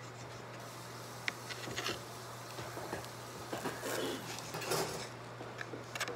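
Light kitchen clatter: scattered, irregular taps and clicks of utensils and dishes, one sharp click about a second in, over a steady low hum.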